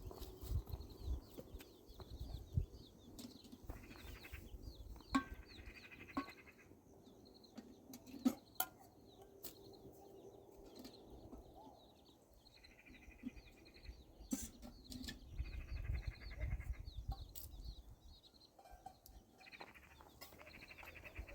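Goats bleating, about five wavering calls of a second or so each, with a few sharp knocks between them.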